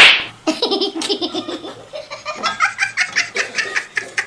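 A person laughing hard in rapid bursts, after a sharp loud burst at the very start.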